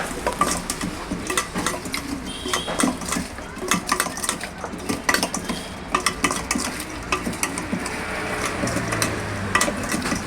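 Metal utensils clinking and scraping against cookware in an irregular run of sharp knocks, some with a short metallic ring.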